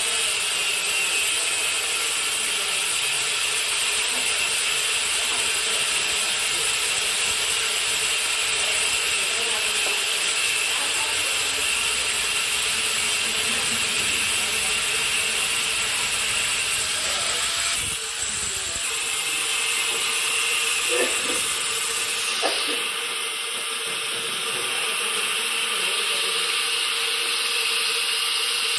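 Power tool cutting through a steel tractor PTO shaft to shorten it: a steady, high-pitched grinding noise that changes in tone about 18 and 22 seconds in.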